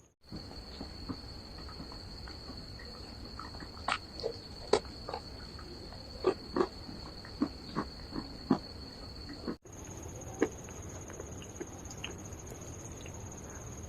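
Close-miked crunching of dry calabash clay (uko), irregular sharp crunches and snaps, a few much louder than the rest, over a steady faint high-pitched whine.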